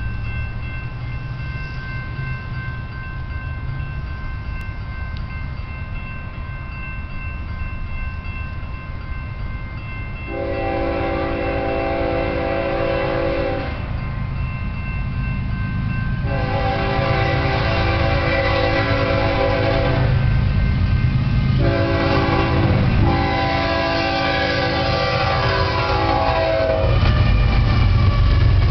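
Crossing bell ringing over the low rumble of an approaching BNSF freight train. About a third of the way in, the lead locomotive's air horn sounds the grade-crossing signal: two long blasts, a short one and a long one. The diesel rumble grows louder as the locomotives pass near the end.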